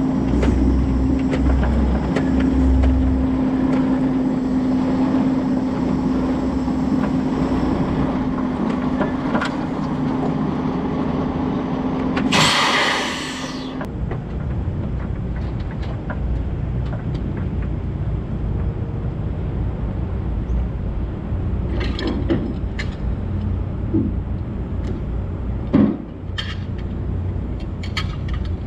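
Semi-truck engine running with a steady drone, then a loud burst of air hiss about halfway through. After that the truck idles with a lower rumble, broken by a few scattered knocks and clicks on the steel-and-wood flatbed deck.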